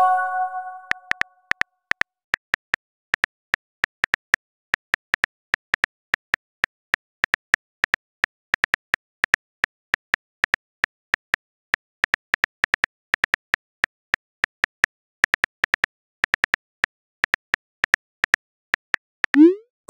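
Phone keyboard clicks as a text message is typed: a fast, uneven run of small ticks, about four or five a second. A chime of several notes rings at the start, and a short rising swoosh, a message-app send sound, comes just before the end.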